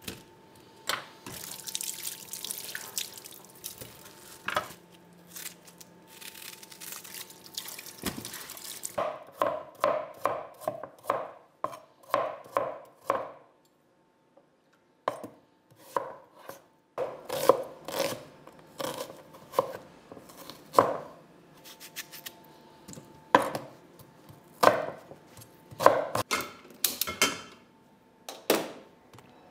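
Kitchen knife chopping carrots and potato on a wooden cutting board: runs of sharp knocks, a few a second, with a short pause midway. Before the chopping there are several seconds of steady hiss, and a faint steady hum sits underneath.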